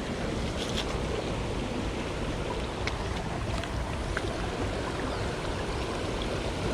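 Steady rushing of a jungle headwater stream, with a few faint clicks.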